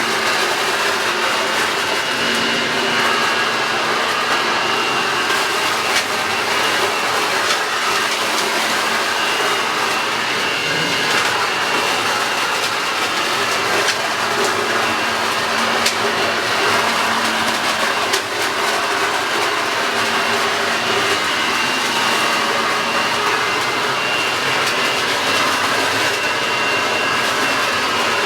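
Toro Super Blower Vac electric leaf blower-vacuum running steadily at full power, a high whine over a rushing air noise, with scattered sharp clicks.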